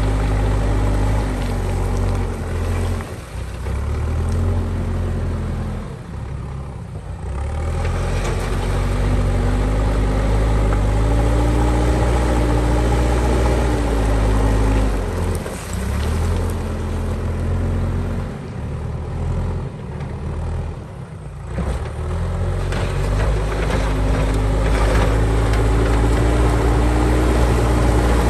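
JCB backhoe loader's diesel engine working under load, its pitch rising and falling as it revs up and settles back, with short dips in level every several seconds.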